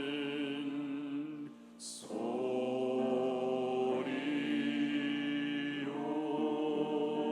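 Church choir singing slow, held chords near the close of an anthem. About a second and a half in, the choir breaks off briefly, then comes back in on a sharp "s" sound and sustains the next chord.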